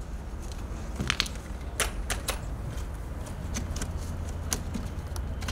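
Black plastic buckets being handled: wire handles clinking and plastic lids clicking and knocking as the buckets are set down and a lid is pried off, a dozen or so sharp clicks over a steady low rumble.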